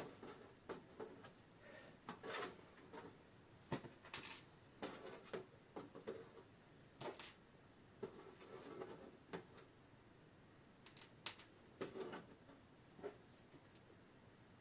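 Faint, irregular small clicks and knocks of disassembled clock parts being handled and set down on a workbench.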